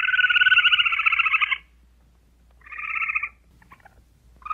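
Squirrel calling in rapid chattering trills: a long trill of about a second and a half, then a shorter one about two and a half seconds in.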